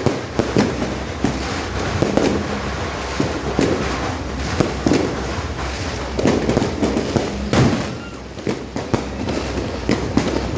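Fireworks going off: many sharp bangs and pops at irregular intervals, densely overlapping, with a short lull about eight seconds in.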